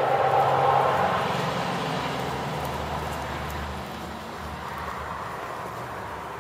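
Steady rumble of a passing vehicle, loudest at first and fading away over the next few seconds.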